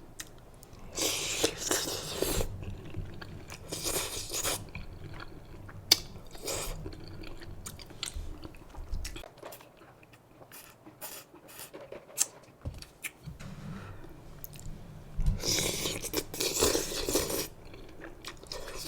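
A person chewing and biting food close to the microphone, with small crunches and wet clicks of mouth sounds; the food is seasoned noodles and fried chicken strips. Louder bursts of eating noise come about a second in, around four seconds, and from about fifteen to seventeen seconds.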